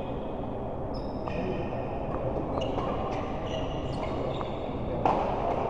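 Sports shoes squeaking several times in short high-pitched chirps on an indoor court floor during a doubles rally, with a few light hits. One sharp, loud hit comes about five seconds in. Hall noise runs underneath.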